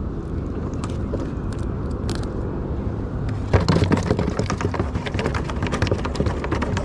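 A steady low rumble. About three and a half seconds in, a dense crackle of splashing and handling sets in as a hand works in the water beside the kayak and tugs at the gill net.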